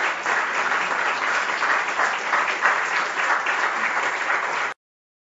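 Audience applauding steadily, the clapping cutting off abruptly near the end.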